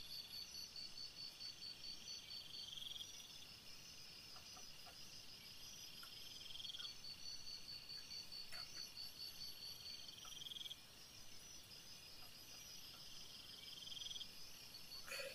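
Faint chorus of night insects chirping: one steady, evenly pulsing high trill, and a second buzzy trill that swells every three to four seconds. A few faint ticks sound in between.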